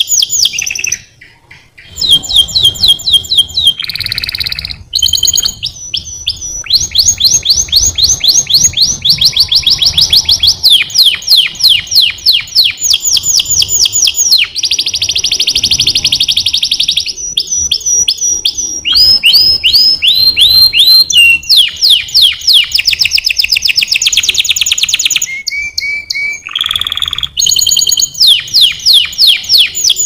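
Canary singing a long, loud song of fast trills, switching from one rapidly repeated phrase to the next every second or two, with a short break about a second in and a few harsher buzzing notes among the trills.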